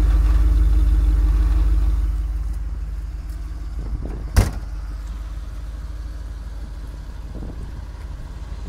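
Mercedes-Benz 450 SL's 4.5-litre V8 idling steadily, heard loud close to the tailpipe at first and fainter after about two seconds. A single sharp click sounds about halfway through.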